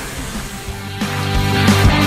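Background music coming in about a second in, with a steady drum beat over bass.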